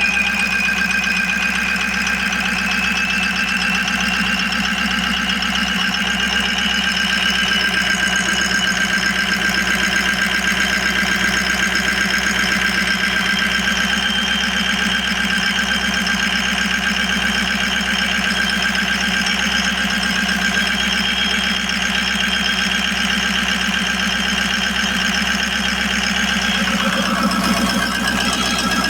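Ford 6.0 L Power Stroke V8 turbodiesel idling steadily with diesel clatter, running on eight newly replaced injectors after a cylinder 7 misfire. A high whine slowly rises in pitch over the first several seconds, then holds steady.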